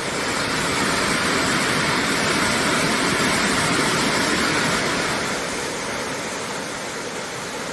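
Waterfall rushing: a steady, loud roar of falling water that swells a little in the middle and eases slightly toward the end.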